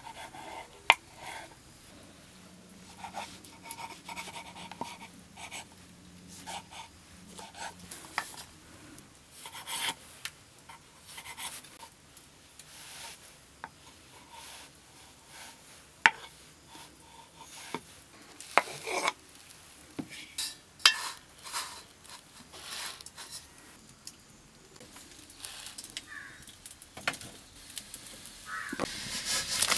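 Knife cutting soft rolled dough on a wooden board: soft scrapes of the blade with scattered sharp taps against the board. Near the end a rising hiss comes from the wok on the wood fire.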